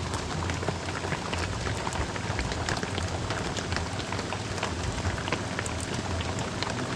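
Heavy rain falling steadily, a constant hiss with many individual drops striking close by.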